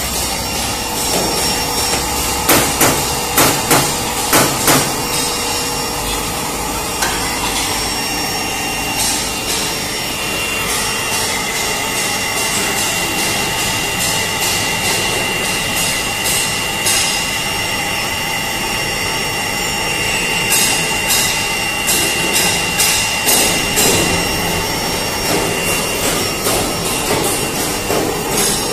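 Spray dryer running with a steady whine made up of several fixed tones. Over it come sharp knocks: a quick run of about six a few seconds in, and a longer irregular series near the end.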